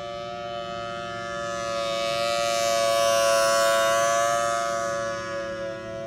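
Federal Signal Thunderbolt 1000T rotating horn siren sounding a steady tone with slight fluctuations in pitch. It swells to its loudest about three seconds in as the rotating horn sweeps past, then fades as it turns away.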